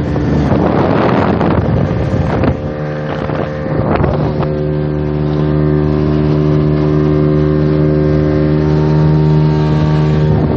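Fishing boat's engine running at a steady pitch. Wind buffets the microphone for the first couple of seconds, and there are a few knocks about two and a half and four seconds in.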